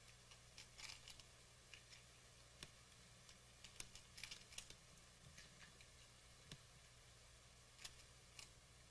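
Faint, irregular wet clicks and crunches of a groundhog chewing and licking an ice cream cone held in its paws, in small clusters over a low steady hum.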